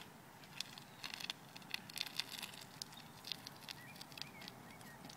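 Faint, uneven taps of a unicycle tyre landing again and again as the rider hops in place.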